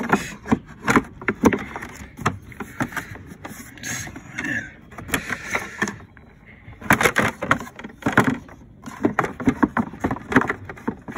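Plastic body panel of a Polaris Sportsman 450 ATV being pushed and snapped into its grooves by hand: a run of irregular plastic clicks, taps and knocks, with a brief pause a little past halfway.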